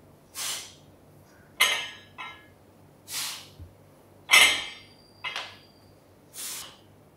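Loaded trap bar going through deadlift reps about every three seconds: a sharp breath before each pull, then the bar set down with a metallic clank and a short rattle of the plates on the sleeves, twice.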